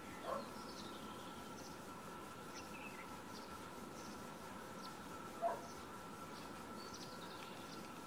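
Faint outdoor ambience: a steady thin high tone with scattered faint short chirps or ticks. Two brief louder animal sounds break through, one just after the start and a louder one about five and a half seconds in. No clear run of woodpecker pecking taps stands out.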